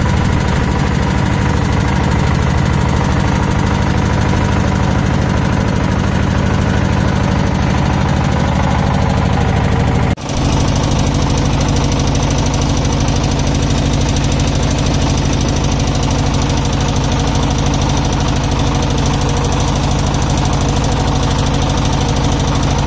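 Wooden motorboat's engine running steadily under way, with a brief dropout about ten seconds in.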